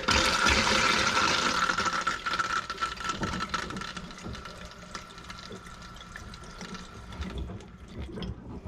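Water rushing out of an RV's plumbing fixture as the water system is tested after a leaking valve was repaired. It starts suddenly and loudly, eases after about three seconds, and stops about seven seconds in.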